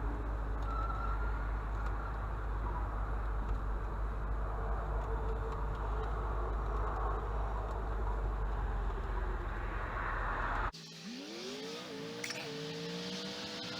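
Motor vehicle driving, with a steady low rumble of engine and road noise. After a sudden cut near the end, an engine speeds up, its pitch climbing quickly and then levelling off into a slow rise.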